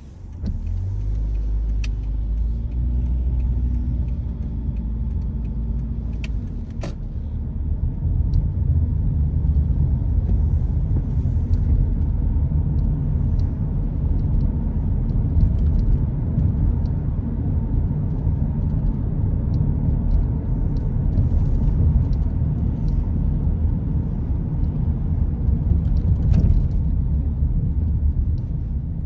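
Low, steady rumble of a car driving, its road and engine noise growing louder about eight seconds in, with a few short sharp clicks.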